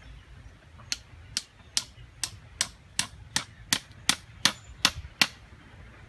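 A heavy knife chopping into tree bark: about a dozen quick, sharp, evenly spaced strikes, close to three a second, starting about a second in and stopping shortly after five seconds.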